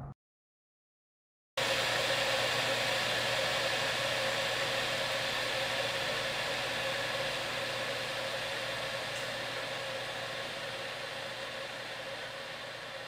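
Silence for about a second and a half, then a steady mechanical hum with hiss, like a running appliance, fading slowly.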